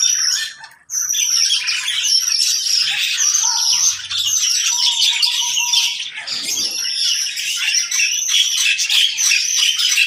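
Many cage birds of mixed species, among them lovebirds, blue-crowned hanging parrots, Asian pied starlings and Javan mynas, chirping and chattering all at once in a dense chorus. The sound briefly cuts out about a second in, and a held whistled note stands out around the middle.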